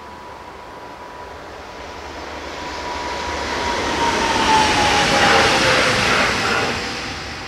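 Electric multiple-unit passenger train passing: wheel-on-rail noise swells to a peak about five seconds in and then fades, with a high whine from the train dropping in pitch as it goes by.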